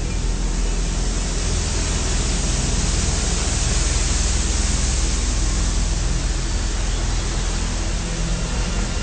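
Steady rush of churned water and spray from a canal passenger boat's wake as it speeds by, over a low steady hum from its engine.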